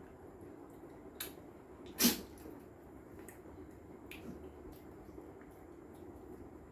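Quiet sounds of people eating ripe mangoes by hand: small wet clicks and one louder, short mouth noise about two seconds in.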